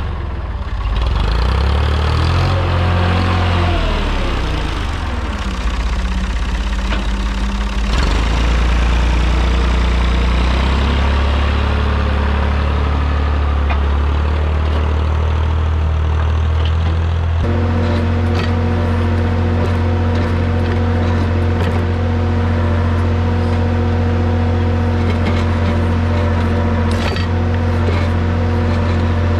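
Massey Ferguson MF30 industrial tractor's Perkins diesel engine running under working load, its speed rising and falling. A little past halfway it changes abruptly and then runs at a steady speed.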